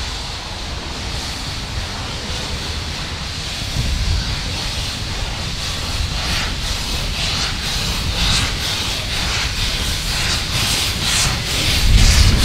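Harz narrow-gauge 2-10-2T steam tank locomotive starting away with its train: a steady hiss of steam from the open cylinder drain cocks, then exhaust chuffs that come in about halfway and grow louder.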